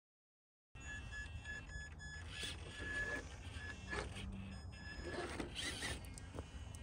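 Traxxas TRX-4 Sport RC rock crawler climbing a rock face. Its small electric motor and gearbox whine on and off under load, and the tires and chassis knock and scrape on the rock a few times. Beneath this is a low steady rumble. The sound starts abruptly about a second in.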